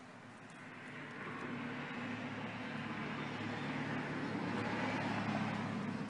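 A passing vehicle: its noise swells steadily over several seconds and begins to fade near the end.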